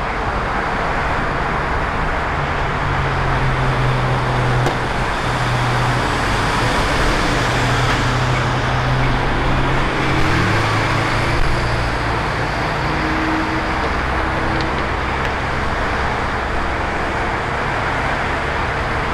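Steady road traffic noise with a low engine hum underneath that shifts in pitch a few times.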